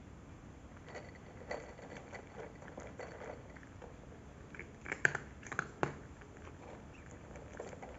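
Cat crunching dry kibble: irregular crisp bites, with a quick run of louder crunches about five seconds in.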